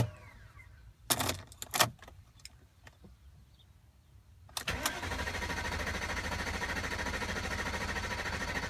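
Starter cranking the 2003 BMW 540i's 4.4-litre V8 steadily without it catching: it cranks but won't start. After a few clicks, cranking begins again about four and a half seconds in and keeps going.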